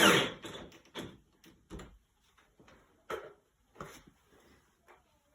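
A power drill spins down right at the start after driving a bolt, then a handful of light knocks and clicks follow, about five spread out, from tools and hardware being handled.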